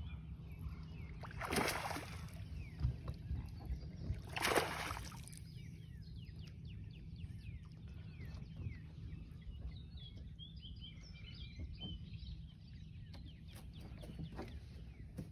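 Two short water splashes about three seconds apart, over a steady low rumble, with small birds chirping repeatedly later on.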